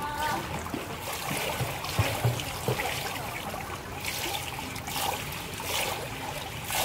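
Swimming-pool water trickling and lapping at the pool edge as people swim, with a few soft low thumps about two seconds in.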